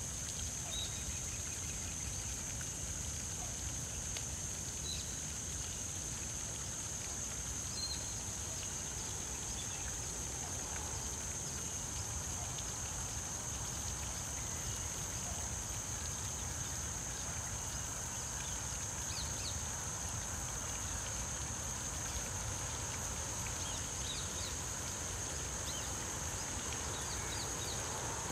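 Canal-side ambience: a steady high-pitched insect drone over a low rumble, with a few faint, short bird chirps scattered through.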